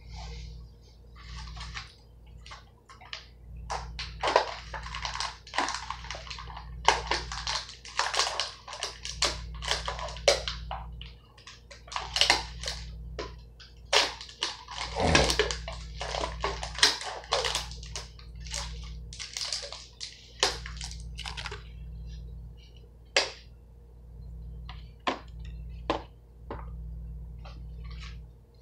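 Plastic food packaging crinkling and rustling in irregular bursts as it is unwrapped and handled, over a steady low hum.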